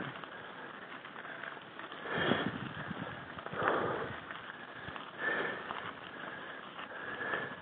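A mountain biker's hard breathing from the effort of an uphill climb, a breath about every second and a half, over the steady crunch of tyres rolling on loose gravel.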